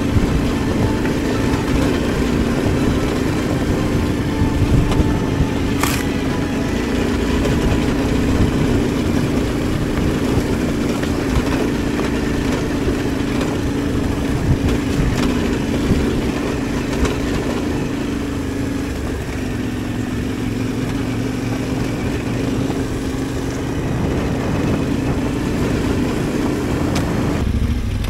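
Adventure motorcycle engine running steadily as it is ridden off-road, with a sharp knock about six seconds in. The sound changes abruptly near the end.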